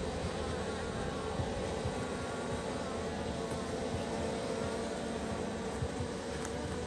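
Western honeybees buzzing in a steady, even drone.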